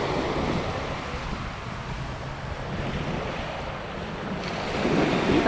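Small waves breaking and washing up a sandy beach, with wind buffeting the microphone. The wash swells louder about five seconds in.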